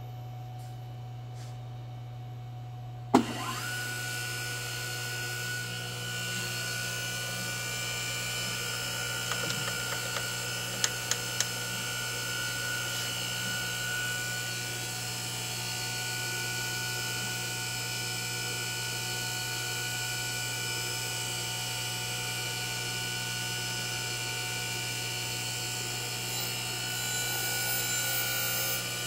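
Sharp SG-618 surface grinder, driven through a VFD, switched on with a sharp click about three seconds in; its spindle spins up quickly to a steady high whine and runs, over a steady mains hum. A few light clicks around the middle, and near the end it gets louder as the wheel grinds the workpiece, throwing sparks.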